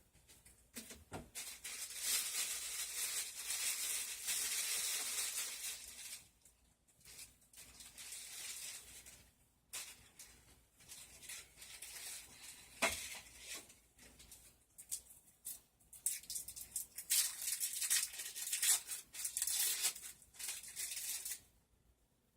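Plastic wrapping crinkling and rustling in bursts as cheese slices are unwrapped and handled, with one sharp click about halfway through.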